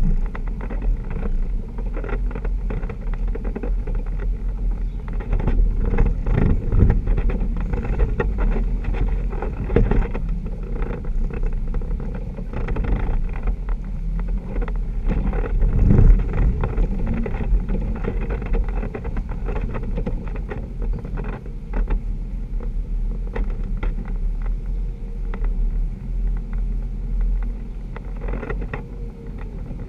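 Jeep engine running at crawling speed on a rough dirt trail, with frequent knocks and rattles from the body jolting over bumps. It swells louder twice, about a fifth of the way in and again just past the middle.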